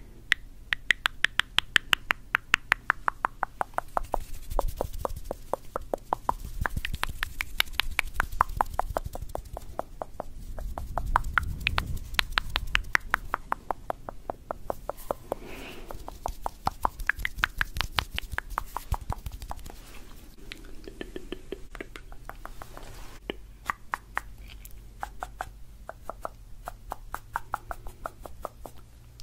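Rapid tongue clicking close to the microphone: runs of sharp, quick clicks, several a second, with a few brief lulls.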